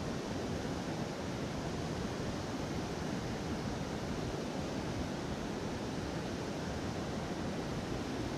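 Steady rush of river water pouring over a low dam spillway.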